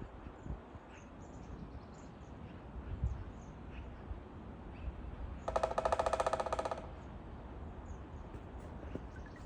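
A woodpecker drumming on wood: one rapid, even roll of strikes lasting just over a second, a little past halfway. Faint high bird chirps come and go around it.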